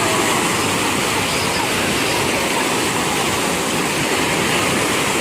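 Sea waves washing onto the shore: a steady rushing of surf.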